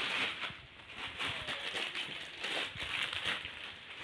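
Plastic bags crinkling and rustling as they are handled, in irregular soft crackles.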